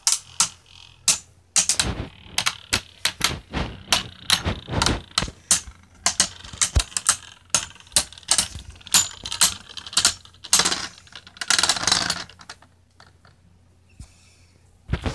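Two Beyblade spinning tops clashing in a plastic stadium: rapid, irregular clacks as they collide, with a longer burst of rattling contact about ten seconds in. The clashing falls away near the end.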